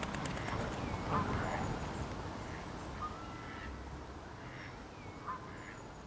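Outdoor bird ambience: scattered short chirps and thin whistles, with waterfowl calls, over a low steady background rumble.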